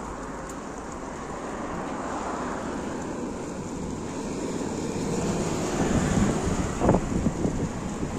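Wind buffeting the microphone in a steady rush that swells about two-thirds of the way in and gusts hardest near the end.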